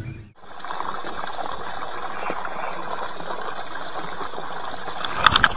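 A steady rushing splash of water beside a boat, with a few short clicks near the end.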